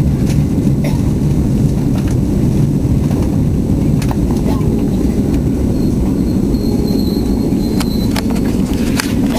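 Steady low rumble of a commuter train car running on the rails, heard from inside the passenger car, with scattered clicks and knocks. A faint thin high whine comes in about two-thirds of the way through.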